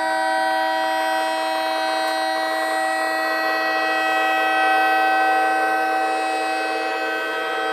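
Homemade electronic tornado siren, a 555-timer tone generator driving an amplified speaker, sounding at full pitch. It holds a steady multi-tone note that swells slightly in loudness partway through.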